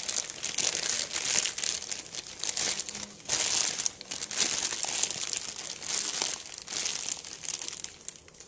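Food wrap being crinkled and handled in repeated bursts, starting suddenly and dying down near the end, as the buttermilk-soaked fish is covered to go into the refrigerator.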